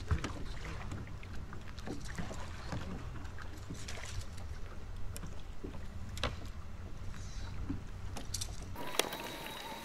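Low steady rumble of wind and water around a bass boat, with scattered light clicks and knocks. About a second before the end the rumble cuts off suddenly and a thin steady whine takes over.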